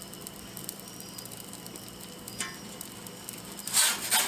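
Ooni Koda propane pizza oven hissing steadily with faint crackles as a pizza bakes on its stone. Near the end, a metal pizza peel scrapes loudly across the baking stone as it slides under the pizza.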